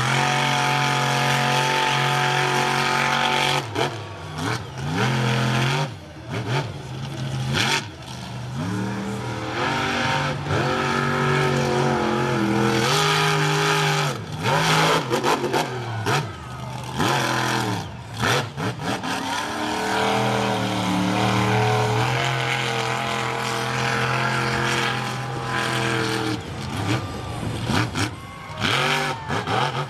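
Monster truck engine revving hard, its pitch rising and falling again and again, with several short drops in level.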